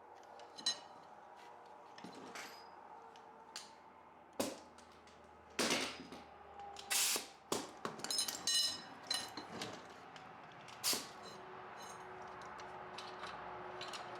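Metal tools and parts clinking and clanking in hand work, a scatter of sharp knocks that come thickest in the middle, with a few short ringing metallic pings.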